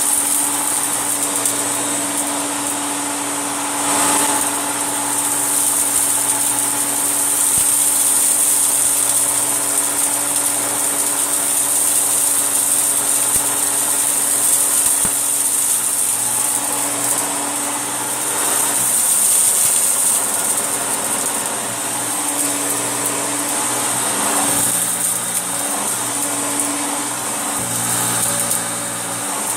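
Hoover Turbolite vacuum cleaner running steadily, a motor hum under a strong high hiss of rushing air. Its pitch shifts a few times near the end as it is worked over the floor.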